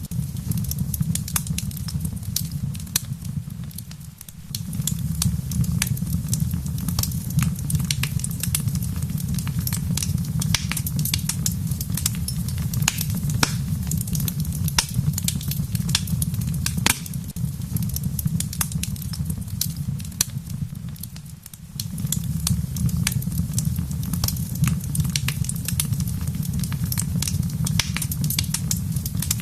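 Wood fire crackling in a fireplace: frequent sharp pops and snaps over a steady low rumble, which fades out briefly about 4 seconds in and again about 21 seconds in.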